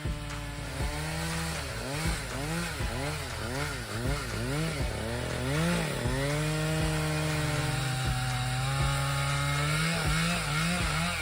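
Two-stroke chainsaw cutting into a large tree trunk, its engine revving up and down about twice a second, then held at steady high revs from about six seconds in, with a few quick revs again near the end.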